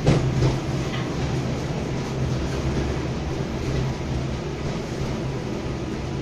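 A 71-619 tram car running, heard from inside the passenger saloon: a steady low hum with wheel-on-rail noise, and a couple of sharp knocks in the first second.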